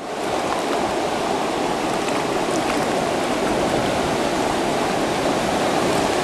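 Muddy river water rushing over and below a dam spillway, a steady, loud rush of churning water.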